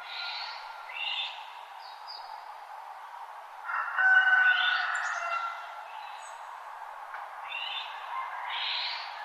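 Wild birds calling in a dawn chorus over a steady background rush. There are short chirped phrases about a second apart at the start and again near the end, and a louder burst of calls with held whistled notes from about four to five and a half seconds in.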